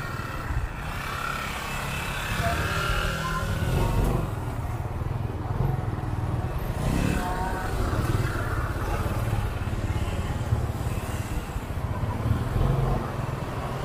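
Small motorcycle engine running at low road speed while riding, a steady low drone mixed with road noise. The engine note rises once about halfway through.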